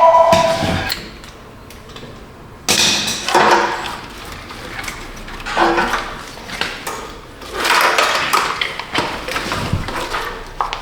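Clanking and scraping of metal engine parts and hand tools being handled in a workshop, in several separate bursts. A steady two-tone whine stops within the first second.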